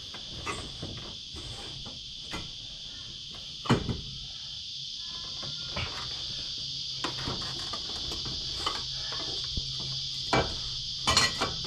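Steady high chirring of crickets under scattered metal clicks and knocks of hand tools being worked on an engine's crankshaft pulley, with a sharper knock about four seconds in, another near ten seconds and a quick run of clicks near the end.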